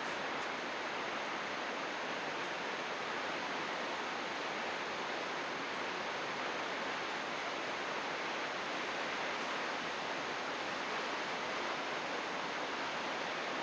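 Steady, even rush of flowing water, a mountain river or waterfall.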